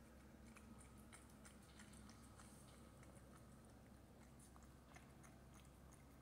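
Cat eating wet food from a bowl: faint, irregular wet chewing and mouth clicks, several a second.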